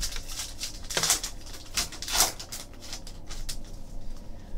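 Trading cards being handled and flipped against one another: a run of light clicks and papery swishes, with louder swishes about one and two seconds in.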